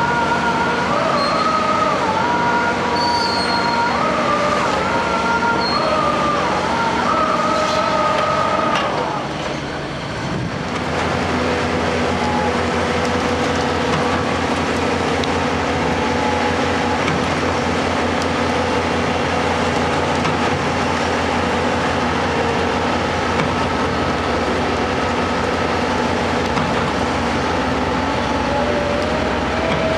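Heavy diesel construction machinery running hard. For the first nine seconds there is a high, wavering metallic squeal. After a brief dip, a steadier, deeper engine drone carries on.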